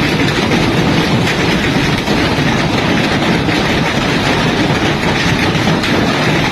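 Hailstorm: hailstones pelting hard surfaces in a loud, dense, steady clatter that cuts off abruptly at the end.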